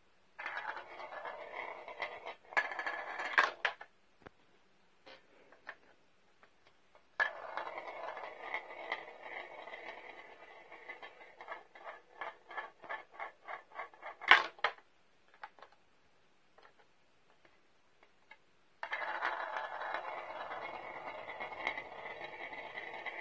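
Plastic ball-run toy (Thrill Bomb) running in three spells: a steady mechanical whir with small balls clicking along its plastic tracks. In the middle spell the clicks come at an even pace and end in one sharp, loud clack.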